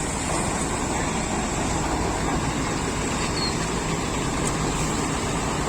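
Steady road traffic noise: lorries and other vehicles running past, with no horn sounding.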